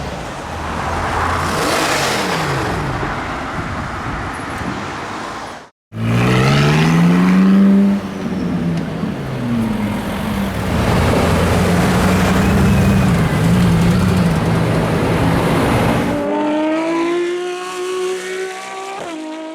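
Loud exhaust of Mercedes-AMG V8 cars, mostly C63s, accelerating and passing by, with a falling pitch as one goes past. After a sudden cut about six seconds in, an engine climbs hard in revs and runs loud. Near the end a quieter engine note rises slowly.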